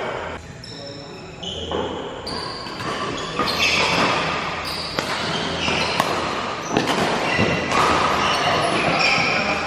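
Badminton rally in a large hall: sharp racket strikes on the shuttlecock every second or so, with short high squeaks of shoes on the court between them.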